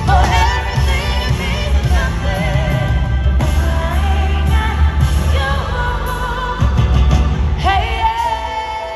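Live concert music: a singing voice in bending runs over grand piano, keyboards and a heavy bass. Near the end the band settles into long held chords.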